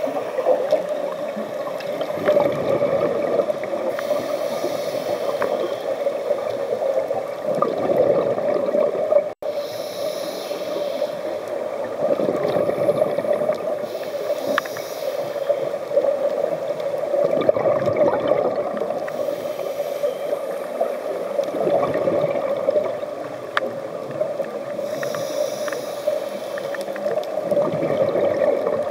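Scuba regulator breathing heard underwater: a hiss on each inhale and a bubbling rush of exhaust bubbles on each exhale, repeating every four to five seconds over a steady hum. The sound cuts out for an instant about nine seconds in.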